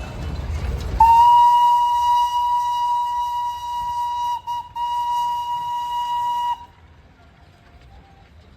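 Darjeeling Himalayan Railway toy train's whistle sounding one long, high, steady note for about five seconds. It dips twice briefly just past the middle and then cuts off abruptly.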